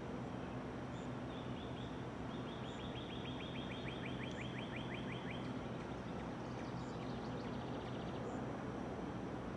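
A songbird sings a rapid trill of quick down-slurred notes, about seven a second, from about a second in to about halfway through, then a shorter, fainter trill follows. Under it runs a steady outdoor background of low hum and noise.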